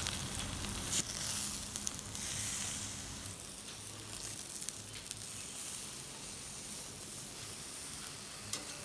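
Marinated chicken pieces sizzling on a wire grill grate over a charcoal coal pot, a steady hiss as they are turned with metal tongs, with a sharp click about a second in.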